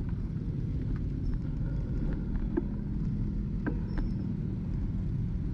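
Road rumble and wind on the microphone from a bicycle rolling over broken concrete and gravel, with scattered small clicks and rattles. A faint steady hum joins for a few seconds midway.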